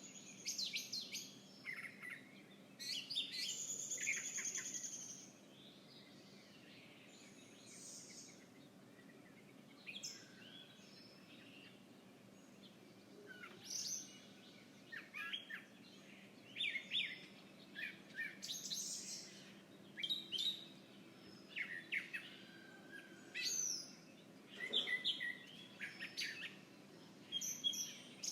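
Several songbirds chirping and calling outdoors, short chirps and trills in scattered clusters with a quieter stretch in the first half, over a faint steady background hum.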